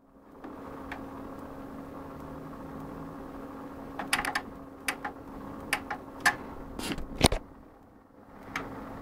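A low steady hum with a run of sharp clicks over a few seconds, the loudest about seven seconds in: the buttons and controls of a Technics hi-fi stereo being worked.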